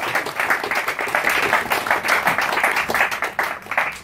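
A small audience clapping and applauding, which dies away at the end.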